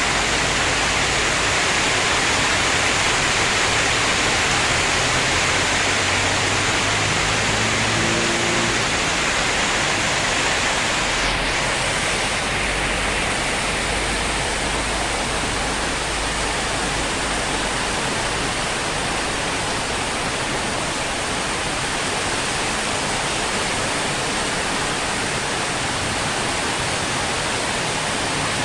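Heavy downpour: a steady, dense hiss of rain, with a low rumble about halfway through.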